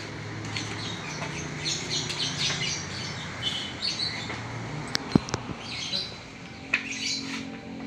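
Birds chirping repeatedly, short high calls scattered throughout, over a low steady hum. A single sharp knock comes about five seconds in.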